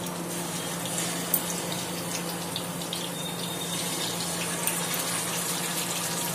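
Marinated chicken drumsticks sizzling in hot oil in a pan: a steady hiss with scattered small crackles, over a steady low hum. A short tap sounds about a second and a half in.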